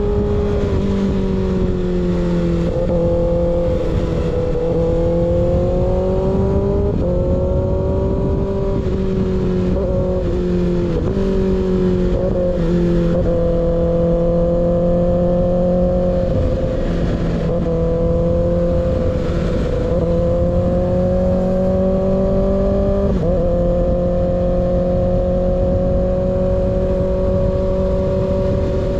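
Kawasaki ZX-6R inline-four engine through an unbaffled M4 GP19 slip-on exhaust, running at steady cruising revs, its pitch rising and falling gently with several brief dips, under a constant hiss of wind noise.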